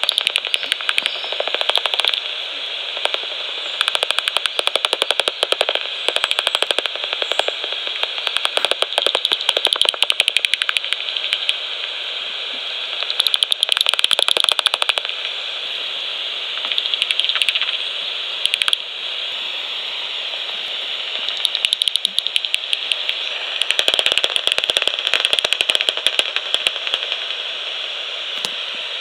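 Magenta Bat5 heterodyne bat detector output: a steady hiss broken by several runs of rapid clicks a few seconds long, each a bat's echolocation calls turned into audible pulses as it flies past.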